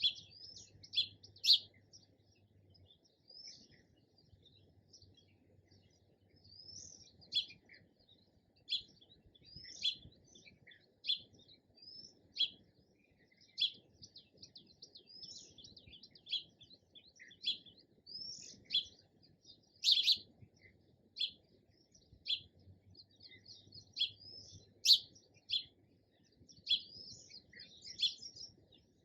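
Sparrows chirping: short, sharp chirps repeated steadily, the louder ones roughly once a second with softer chirps in between.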